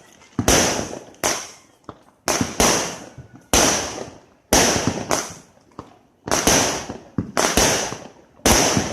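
Fireworks going off one after another, about a dozen sharp bangs, each followed by a fading hiss.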